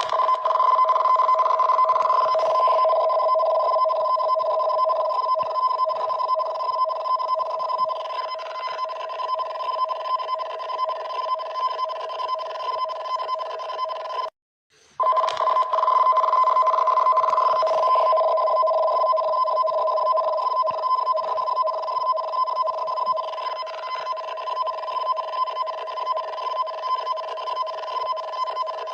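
Japanese emergency alarm for a tsunami warning: a loud two-tone electronic signal, a low and a high tone warbling rapidly together. It sounds in two long stretches, broken by a sudden brief silence about halfway through.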